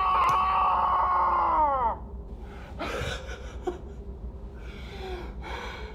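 A person's long, high, steady scream that drops in pitch and breaks off about two seconds in, followed by several heavy, gasping breaths.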